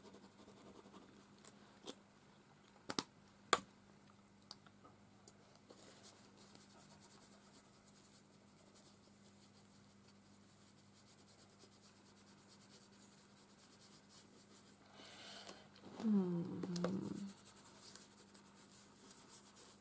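A wipe rubbing over a painted paper card, a faint scrubbing hiss, with a few sharp clicks in the first few seconds as a crayon stick is handled and set down. About sixteen seconds in comes a brief, louder voice-like murmur.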